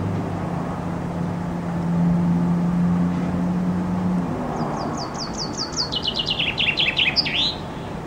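Common chaffinch singing one song phrase about halfway in: a quick run of notes stepping down in pitch, ending in a short flourish. Before it, a low steady hum stops.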